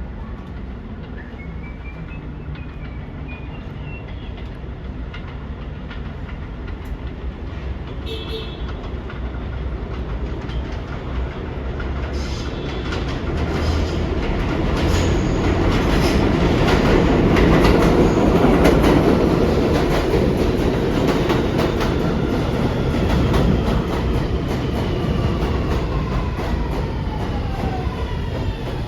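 Ride noise inside a Kawasaki R211A subway car in motion: a motor whine stepping up in pitch in the first few seconds, then wheels clicking over rail joints and running noise building to its loudest about halfway. Near the end several whine tones fall in pitch as the train slows.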